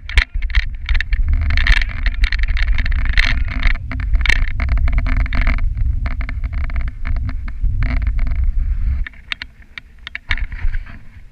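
Sled gliding over a packed snow trail: a steady low rumble from the runners with frequent clicks and knocks as the sled rattles over bumps. The rumble drops off about nine seconds in, leaving scattered clicks.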